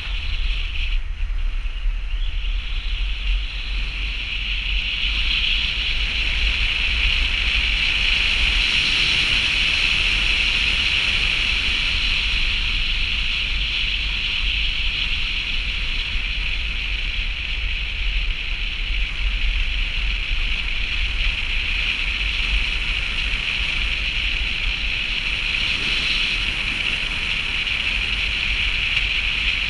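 Steady rush of wind over a car-roof-mounted camera's microphone as the car drives, with a low rumble of the car's tyres on the snow-packed road underneath.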